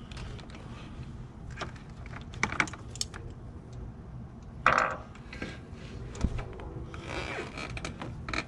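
Scattered clicks and clinks of hand tools and metal parts being handled during engine reassembly, with one louder scrape or clunk about five seconds in.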